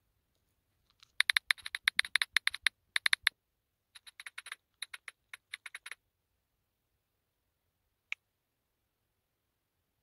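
Key-press clicks of a smartphone's on-screen keyboard during typing: a fast run of loud clicks about a second in, a quieter, sparser run after a short pause, then one lone click near the end.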